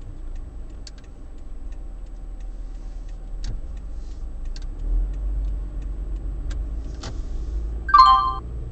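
Car driving, heard from inside the cabin: a steady low engine and road rumble with a few scattered light clicks. Near the end comes a short, loud beep or horn-like toot lasting under half a second.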